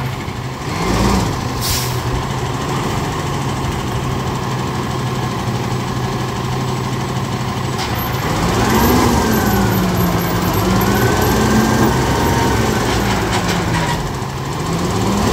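Freightliner roll-off truck's diesel engine running while its hydraulic hoist lowers a roll-off container onto the bed. A brief hiss comes about 2 s in. From about 9 s the engine and hoist pitch rises and falls several times.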